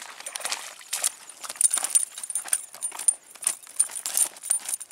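Irregular clicks, knocks and clatter of handling, with a faint high ticking about five times a second behind them.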